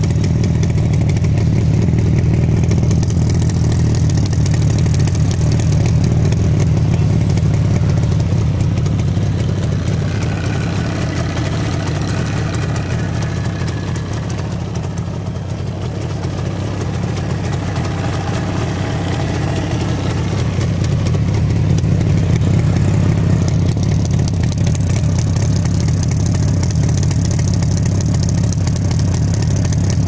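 Yamaha Rajdoot RD 350's air-cooled two-stroke parallel-twin engine idling steadily through its twin mufflers, a little quieter in the middle.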